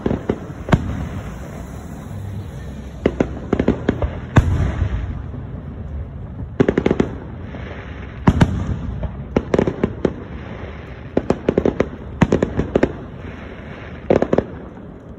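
Aerial fireworks shells bursting overhead: clusters of sharp bangs and pops every second or two throughout.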